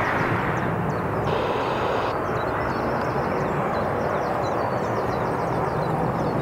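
Jet airliner engine noise, a steady rushing drone at an even level.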